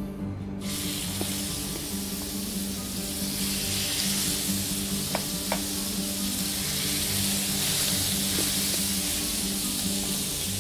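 Beef sirloin steaks sizzling as they are laid into a very hot pan of rapeseed oil and browned butter: the sizzle starts suddenly under a second in and then holds steady, with a couple of light clicks about five seconds in.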